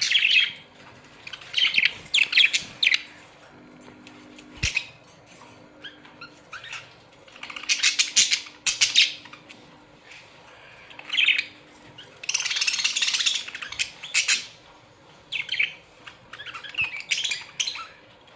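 A colony of budgerigars chirping and chattering in irregular bursts, with a longer run of busy chatter a little past the middle.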